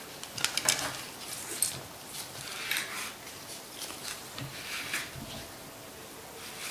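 Bore snake cleaning rope being pulled through an AR-15 rifle barrel: rough rubbing swishes with scattered light clicks and taps.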